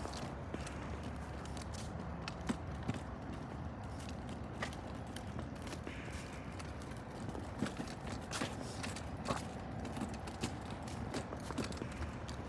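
Light, irregular taps and clicks over a steady low rumble of outdoor background noise, the sound of someone moving along a street.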